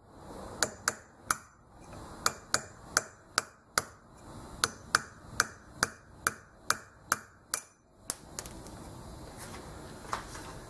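A small hammer tapping a steel motor shaft used as a drift, driving a worn bearing out of a brushless motor can held in a vise. About seventeen sharp metallic taps come in quick runs of two to three a second, stopping about eight seconds in.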